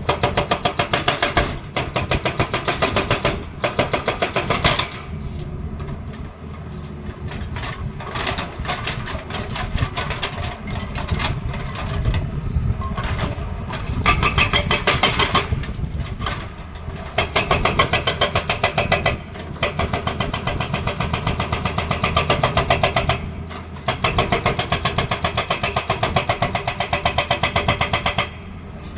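Hydraulic breaker on a Tata Hitachi excavator hammering in rapid, evenly spaced blows, in several bursts of a few seconds each. Between bursts the excavator's diesel engine keeps running.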